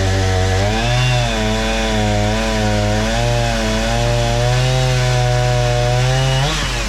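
Excavator diesel engine and hydraulics labouring as the splitter is forced through wood: a loud, deep drone that wavers and dips in pitch under load, then rises sharply near the end as the load comes off.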